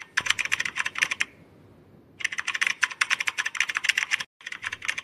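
Computer-keyboard typing sound effect for a typed-on text animation: rapid key clicks in three runs, about a second of typing, a second's pause, two seconds of typing, then a brief break before the clicking resumes near the end.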